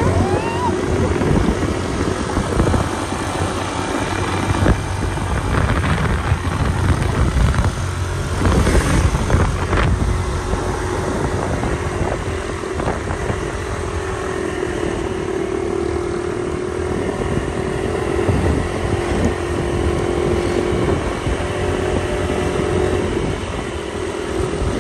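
A motor vehicle running along, with wind rushing over the microphone and a steady engine hum that grows clearer in the second half.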